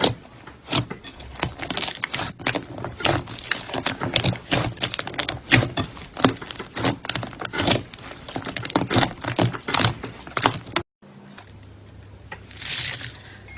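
Slime being squeezed and worked by hand, giving rapid irregular clicks and pops. The sound cuts off suddenly about eleven seconds in, and a softer, quieter stretch follows.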